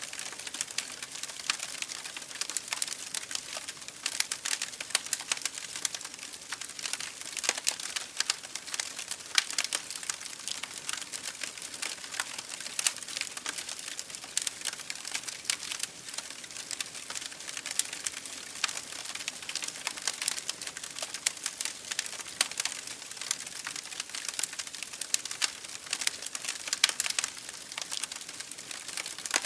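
Wood fire burning in an open fireplace: dense, irregular crackling and popping over a steady hiss.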